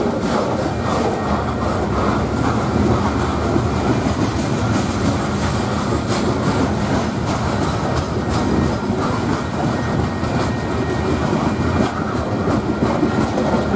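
Covered hopper cars of a long freight grain train rolling past close by: a steady rumble of steel wheels on the rails, with clatter over the rail joints.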